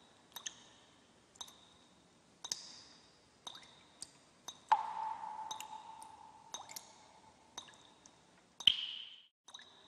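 Sparse electronic background track: soft clicks with a ringing ping about once a second, a swelling tone about halfway through, and a sharp hit with a falling ping near the end.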